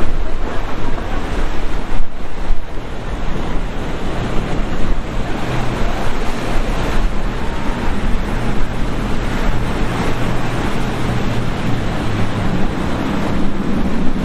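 Boat engine running over wind noise on the microphone and the rush of waves. A low engine drone comes through from about four seconds in and climbs in pitch near the end.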